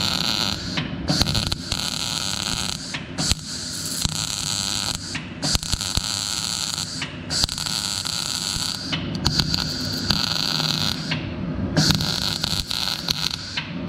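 CO2-shielded MIG welder arc crackling as the iron filler wire is fed into the weld, in a series of about seven short runs of one to two seconds each, separated by brief stops.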